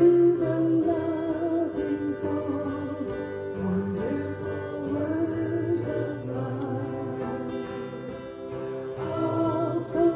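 Live worship song played on acoustic and electric guitars, with singing.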